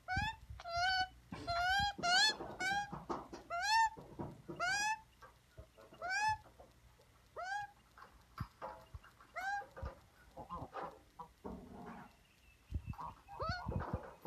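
A magpie calling over and over in short rising squawks, about one a second at first, then further apart.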